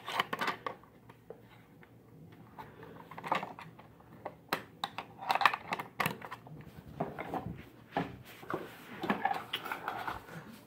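Irregular light clicks, taps and rustles of small plastic parts being handled and fitted together.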